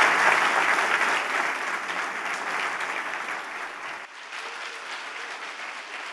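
Audience applauding, loudest at first and slowly dying away, with a small drop in level about four seconds in.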